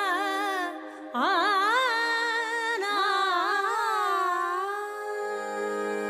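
Carnatic-style music: a voice sings a wordless, heavily ornamented melodic line over steady held accompanying notes. The voice breaks off briefly about a second in, and a lower held note joins near the end.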